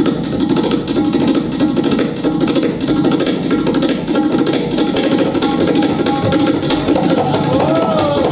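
Tabla played as a fast, unbroken stream of strokes imitating a moving train, here a train approaching from a distance. A few rising-and-falling tones sound near the end.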